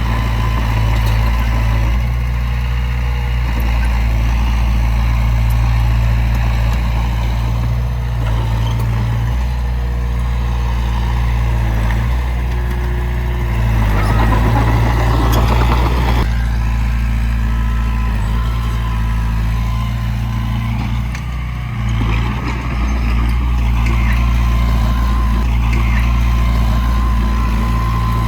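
Heavy diesel engine of earthmoving machinery running steadily with a deep hum. About halfway through, a rushing noise lasts about two seconds.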